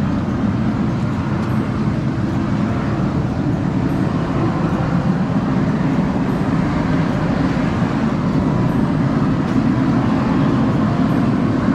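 Geothermal steam vent rushing steadily as a jet of near-boiling steam pours out of a rock pile.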